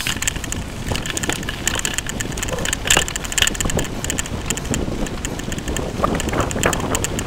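Wind buffeting the microphone of a bicycle-mounted camera, over a steady rumble, with frequent sharp rattles and clicks as the bike runs over rough, patched asphalt.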